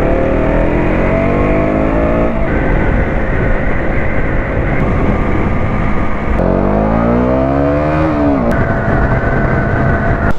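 Motorcycle engine accelerating through the gears: its pitch climbs, then drops at a gear change about two and a half seconds in, climbs again from about six and a half seconds and falls away as the throttle eases near eight seconds. Wind buffets the helmet-mounted microphone throughout.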